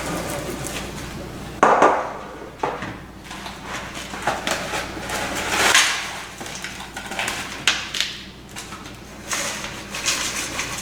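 Knocks and rubbing from a springform pan being handled and buttered on a kitchen counter, with a sharp knock about two seconds in and scattered lighter knocks and scrapes after.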